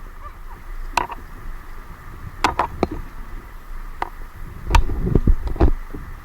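A scattering of sharp knocks and clicks, with a louder cluster and a low rumble about five seconds in.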